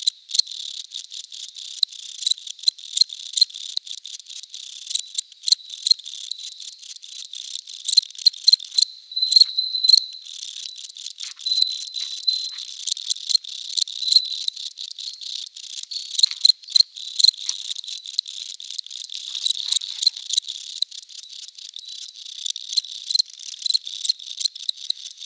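Crickets chirping: a high, steady trill with many short chirps overlapping.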